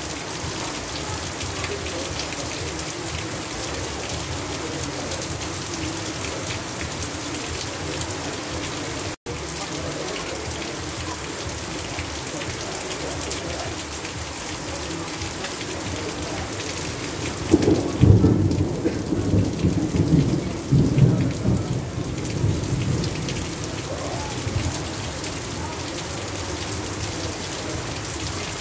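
Heavy rain pouring steadily, with water streaming off a roof edge. The sound cuts out for an instant about nine seconds in. Past the middle a roll of thunder rumbles for about five seconds, loudest at its start.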